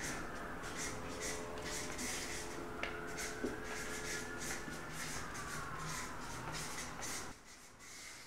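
Felt-tip marker writing on flip-chart paper: quick scratchy strokes with a thin squeak that slides up and then down in pitch, stopping about seven seconds in.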